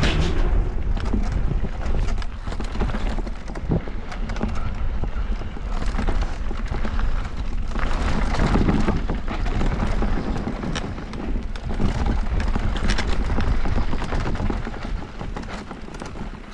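Mountain bike descending a rough dirt trail: wind rushing over the microphone and tyres rumbling on the ground, with frequent knocks and rattles as the bike hits bumps.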